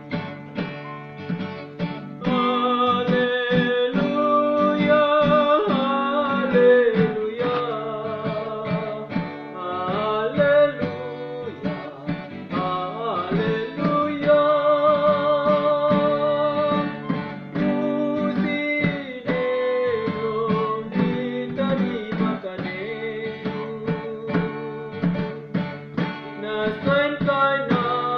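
A voice singing a slow song with long, wavering held notes over plucked acoustic guitar. The guitar plays alone at first and the singing comes in about two seconds in.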